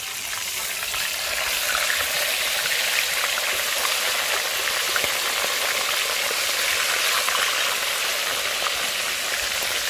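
Whole fish deep-frying in a pot of hot oil: a steady sizzle with fine crackling throughout.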